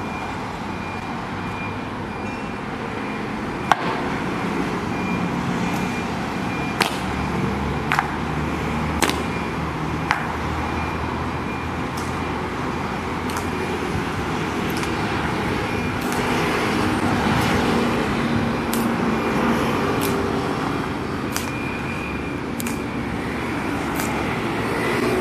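Sharp footfalls about every second and a bit, the hard boot heels of honor guards in slow march, over a steady hum of road traffic.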